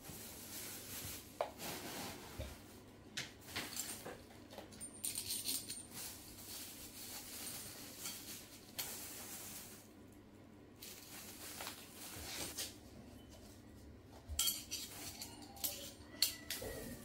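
Dishes and utensils clinking and clattering as they are handled, in irregular short bursts, a few of them ringing briefly.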